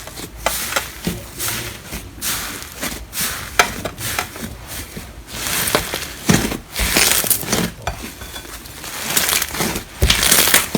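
Slime being pressed and squished by hand, making irregular sharp pops and crackles.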